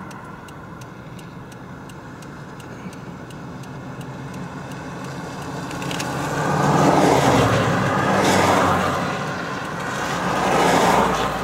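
A vehicle's engine running with a steady low hum. From about halfway through, a rushing road and wind noise swells up in waves, loudest near the end.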